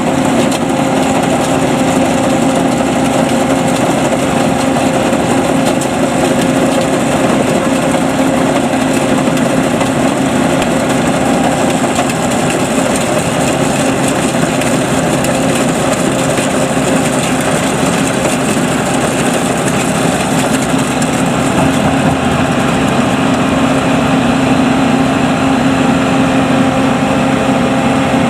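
Engine of a homemade rice combine harvester running steadily at an even, unchanging hum.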